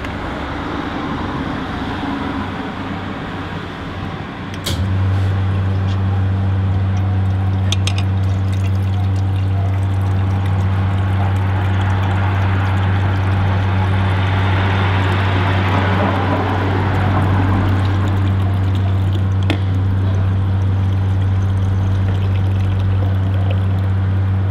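Brunimat fresh-milk vending machine filling a glass bottle: milk pours in a steady hissing stream down the side of the tilted bottle. A loud, steady low hum from the machine starts about five seconds in and holds.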